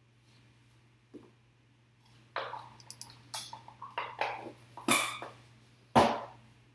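Hands handling a small white cardboard trading-card box: a run of scrapes and sharp clicks starting about two seconds in as the box is worked open, with two louder knocks, the last near the end as the box is set down.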